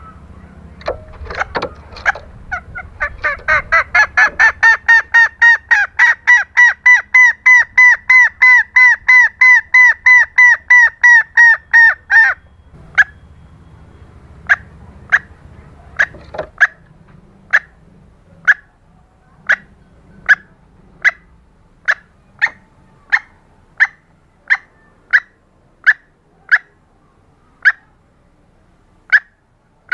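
Female green junglefowl calling: a fast run of repeated clucking notes, about three a second, that breaks off at around twelve seconds, then single notes spaced about a second apart. It is the female's call to a male, used to lure cocks.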